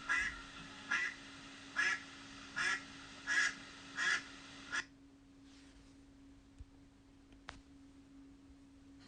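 Duck quacking: a run of about seven quacks, roughly one every 0.8 seconds, that stops about five seconds in, over a faint steady hum.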